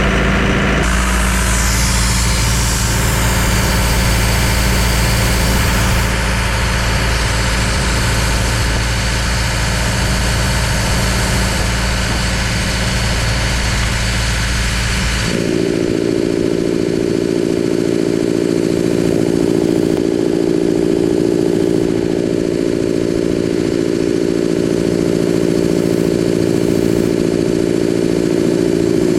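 An engine running steadily. About halfway through its sound changes abruptly: the deep low part drops away and a steady mid-pitched hum takes over.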